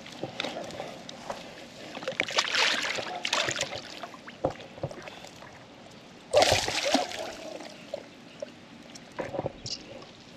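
Water splashing and sloshing as a hooked peacock bass thrashes at the bank while being landed, with scattered knocks and a louder rush of noise a little past the middle.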